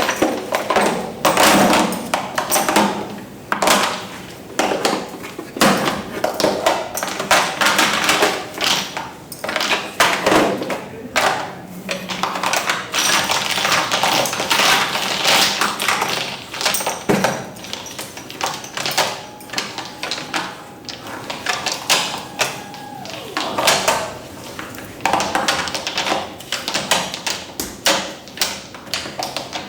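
Rapid, irregular tapping and clicking of hard objects, with a few louder knocks among them.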